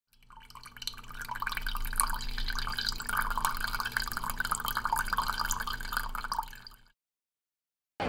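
A thin stream of coffee trickling from a pour-over dripper into a ceramic mug: a steady, fine spattering of drips that fades in over the first second and fades out about seven seconds in. A faint low hum runs underneath.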